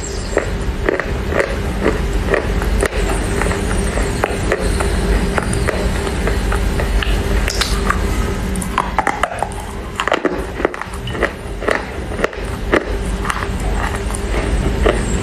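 Close-up chewing of wet Chinese loess clay: a run of short, crisp crunches as bites of the clay are broken between the teeth, about one to three a second, over a steady low hum.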